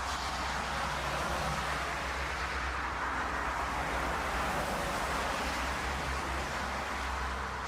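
Aircraft engines running steadily: an even rushing noise over a low hum, with no distinct events.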